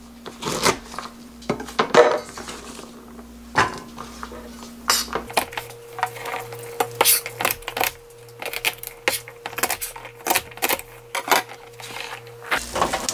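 Kitchen knife chopping garlic scapes on a plastic cutting board: an irregular run of sharp knocks, sparse at first and coming thick and fast in the second half.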